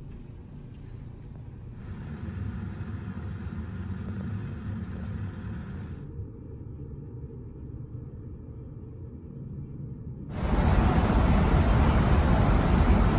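Steady low rumble of a ferry's engines heard from inside the ship, louder after about two seconds and muffled for a few seconds in the middle. Near the end it switches abruptly to a much louder, even rush of wind and churning wake water on the open stern deck, over the ship's rumble.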